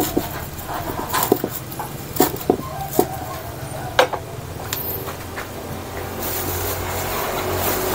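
Knife chopping papaya leaves on a wooden block: several irregular sharp knocks in the first half, then they stop, leaving a steady low hum.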